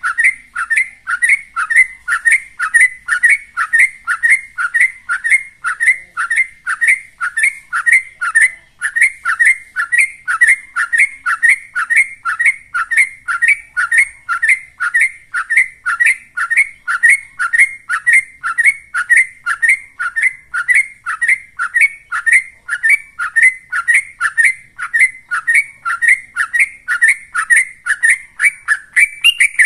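Yellow-vented bulbul (trucukan) singing in rapid-fire 'ropel' style: a quick, even, unbroken run of short falling notes, about three a second.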